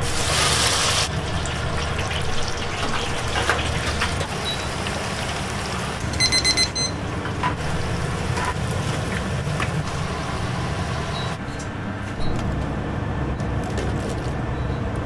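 Oil sizzling in a commercial deep fryer over a steady low kitchen hum. A rapid run of electronic beeps sounds for under a second about six seconds in.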